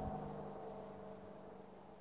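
2001 Chevrolet Corvette Z06's LS6 V8, with long-tube headers and test pipes in place of catalytic converters, pulling away into the distance after a 3500 rpm launch to wide-open throttle. Its steady exhaust note fades to faint by the end.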